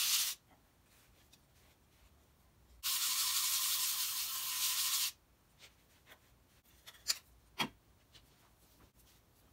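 A steel plane iron being lapped on abrasive paper over a granite plate: a steady gritty scraping that stops just after the start, then a second spell of about two seconds from about three seconds in. Two light taps follow near the end.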